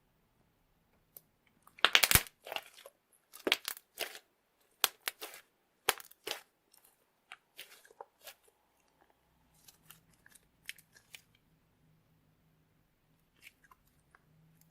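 Slime mixed with Orbeez water beads being worked, giving irregular sharp crackling clicks and pops. They are loudest and densest in the first half and thin out to scattered faint clicks later.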